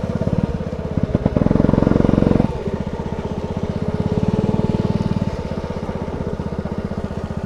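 Go-kart engine running under the driver, pulsing rapidly. It swells for about a second, then drops suddenly about two and a half seconds in, and carries on at a steady lower level.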